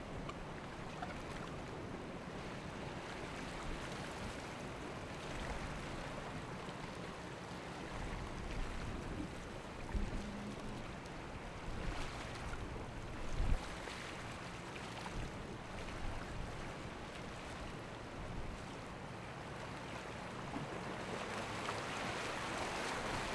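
Wind and rough waves around a twin-outboard cabin fishing boat running through inlet chop, with water rushing and splashing off the hull. A few low thumps come in the middle, and the wash grows louder near the end.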